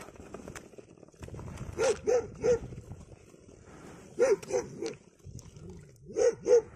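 A dog barking: three quick barks, three more a couple of seconds later, then two near the end.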